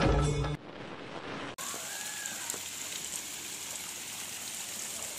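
A thin waterfall spilling down a rock face and splashing steadily onto the stones below. The loud intro music cuts off about half a second in.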